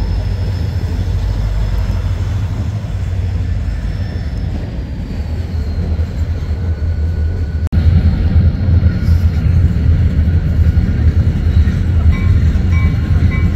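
A freight train led by EMD GP40-2 diesel locomotives rolling past, the steady low rumble of its wheels on the rails. A thin high squeal runs over it for the first half, dropping slightly in pitch. After a brief dropout a little over halfway, the rumble is louder.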